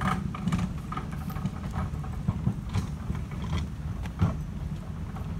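Large four-wheeled wheelie bin rolling on its castors over a tarmac path: a steady low rumble with irregular rattles and knocks, and one sharper knock about four seconds in.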